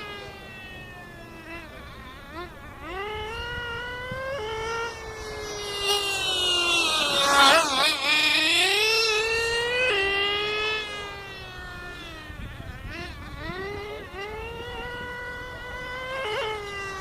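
Small nitro glow engines of radio-controlled cars whining at high revs. The pitch repeatedly climbs and then drops sharply as the throttle is eased, and the sound is loudest about halfway through as a car passes close.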